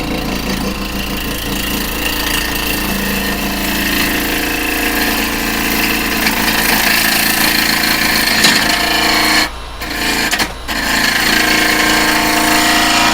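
Carbide chisel taking light scraping cuts on an off-balance cherry branch spinning on an Axminster 1628 wood lathe at about 1,670 RPM, over the steady hum of the lathe; the cuts are truing up the uneven end grain. The sound drops out sharply twice, about two-thirds of the way through.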